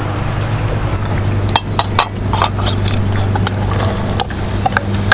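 Diced onion being tipped from a bowl into a cast-iron Dutch oven, with a wooden spoon scraping and knocking against the bowl: a run of sharp clicks and light knocks starting about a second and a half in. A steady low hum runs underneath.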